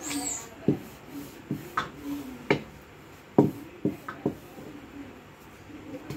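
Rolling pin rolling out chapati dough on a rolling board: a rubbing sound broken by about seven irregular knocks in the first four seconds or so.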